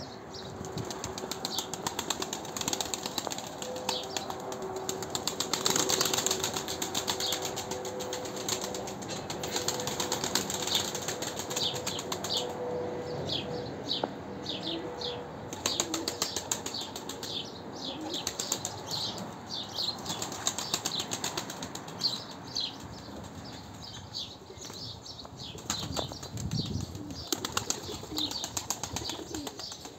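Mardin pigeons' wings flapping and fluttering in short spells as birds hop, take off and land among the flock, over repeated short high chirps.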